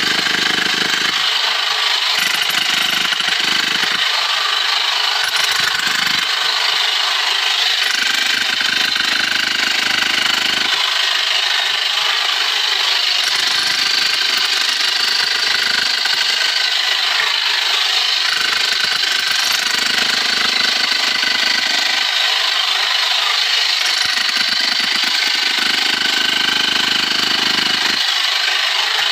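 Handheld power hammer running continuously, its chisel bit hammering into the rock face of a narrow mine tunnel.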